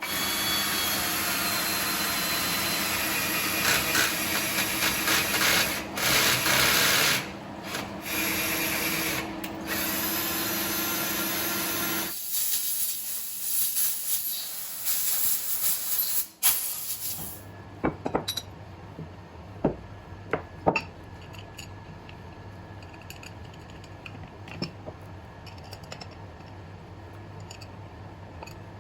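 A machine tool running with a loud steady hiss and hum, which stops about 17 seconds in. Light metallic clicks and taps follow.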